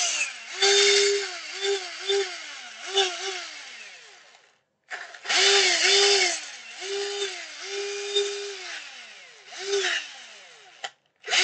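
Cordless 18 V drill/screwdriver, converted to run from a laptop power supply, switched on and off in about ten short trigger bursts. The motor holds a steady pitch while running and its pitch falls as it winds down after each release. There is a brief silent pause about halfway and a sharp click near the end.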